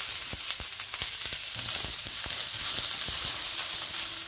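Sliced onions sizzling in hot oil in a non-stick pan, stirred with a wooden spatula that knocks and scrapes against the pan at an irregular pace.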